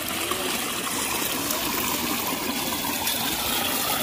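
Water running steadily through a wooden gem-mining sluice.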